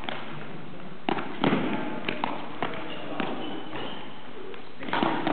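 Scattered sharp thuds and taps from footbag net play: kicks on the footbag and players' footsteps on the court floor, irregular, several a second at times, in a large hall.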